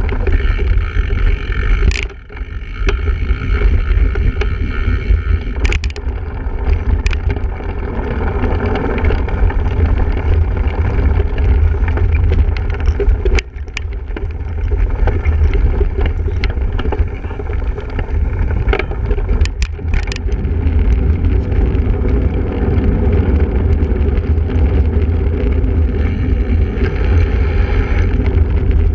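Wind rumbling steadily on the microphone of a camera carried on a single-speed cyclocross bike, with scattered sharp knocks and rattles as the bike goes over rough ground.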